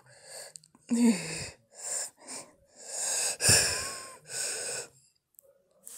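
A man with a head cold sniffling, wheezing and sneezing in a run of about six short, breathy bursts, the loudest about three and a half seconds in.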